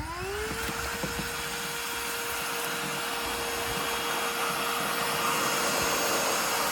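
TEUMI cordless handheld vacuum running: its motor whine rises as it spins up and settles to a steady pitch about half a second in, over a steady rush of air.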